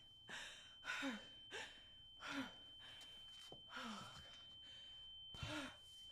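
A woman hyperventilating in a panic attack: quick ragged gasps and sighs about once a second, many ending in a short falling moan. A thin steady high tone sits underneath.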